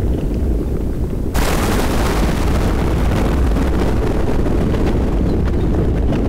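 Thunderstorm: rain falling over a steady deep rumble, and about a second in a sudden thunderclap that fades away over the next few seconds.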